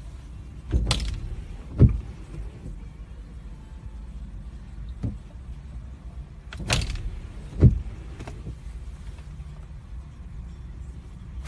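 Car windscreen wipers sweeping across the glass twice, about six seconds apart. Each pass is a swish followed about a second later by a thump. Under it runs the car's low steady hum, heard from inside the cabin.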